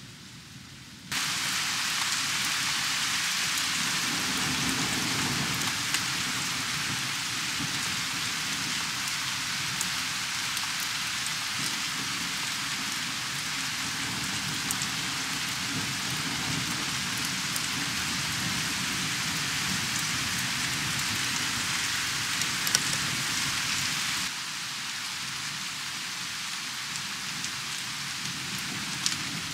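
Heavy rain falling, a dense steady hiss with a low rumble underneath. It starts abruptly about a second in and drops to a lower level about three-quarters of the way through.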